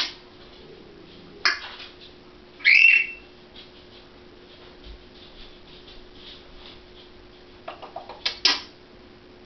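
African grey parrot making short, sharp clicking and squawking sounds, with a brief rising whistle about three seconds in and a quick run of clicks near the end.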